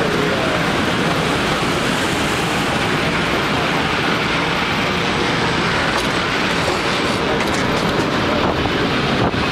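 San Francisco cable car running along its track: a loud, steady rumble and rattle of the car on the rails, with a few sharp clacks in the last few seconds.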